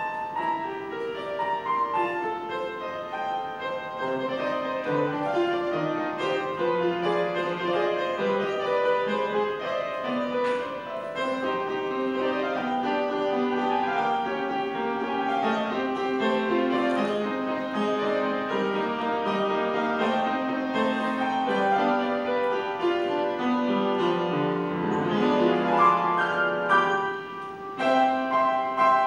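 Solo piano piece played on an upright piano, many notes and chords ringing on. It builds to its loudest passage near the end, breaks off for a moment, then goes on.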